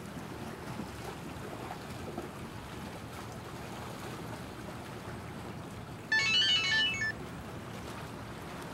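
A mobile phone ringtone plays a short tune of quick high notes for about a second, some six seconds in, over a steady background hiss.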